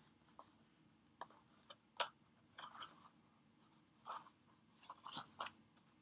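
Faint crinkles and clicks of cardstock being handled as thin thread is worked through a small paper box, about a dozen short sounds with the sharpest about two seconds in and a cluster near the end.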